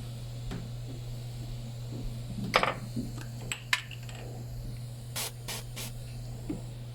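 Soldering work: a handful of short hisses and a few sharp clicks over a steady low hum. Three quick hisses come close together near the end.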